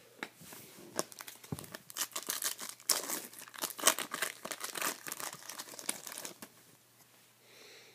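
Foil wrapper of a trading-card pack being torn open and crinkled by hand: a dense run of sharp crackles that dies away near the end.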